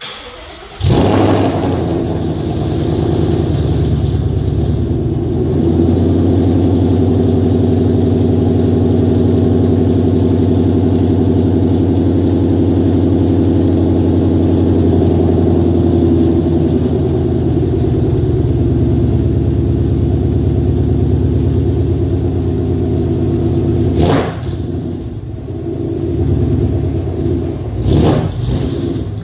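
2015 Mustang GT's 5.0 L Coyote V8 on E85, through an MBRP Street cat-back exhaust, starts about a second in and settles into a steady, loud idle. A sharp burst comes about 24 seconds in and a short cluster near the end.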